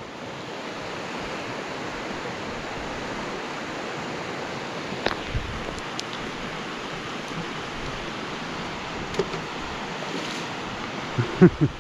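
Steady rush of a river's rapids heard from high above, with a few small clicks in the middle and a brief cluster of knocks near the end.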